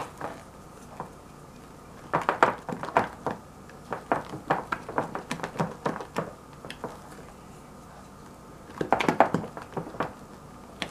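A spatula scraping and knocking against the sides of a stainless steel saucepan while folding whipped cream into melted chocolate for mousse. It comes in runs of quick clicks and taps, about two seconds in, again from about four to six seconds, and again around nine seconds.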